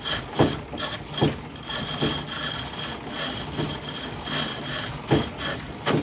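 Wooden 18th-century foot-treadle lathe at work: a cutting tool scraping steadily against the spinning wood, with a sharp knock from the treadle stroke about once a second.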